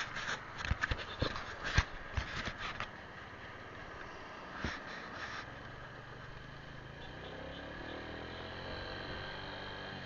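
A run of sharp knocks and clicks in the first few seconds, then a small motor scooter engine rising steadily in pitch as it accelerates.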